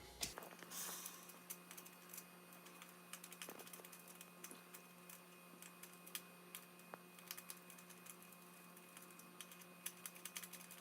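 Faint, scattered small clicks and taps from handling the screws and wire ends of a dryer power cord at the terminal block, over a steady low hum.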